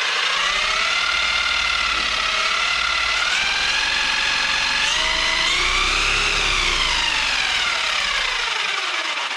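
Traxxas Maxx's brushless motor and geared drivetrain whining as the wheels are spun up under throttle. The pitch climbs in steps to a peak about six seconds in, then falls away as the throttle eases off.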